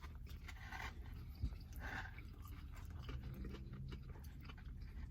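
Faint chewing and breathing as a man eats a bite of a fried chicken sandwich on glazed donut buns, with a low steady hum underneath.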